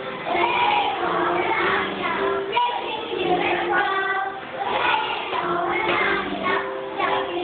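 Group of children singing a song with music, held notes and shifting melody lines carrying on without a break. The sound is thin and dull, as from a phone recording.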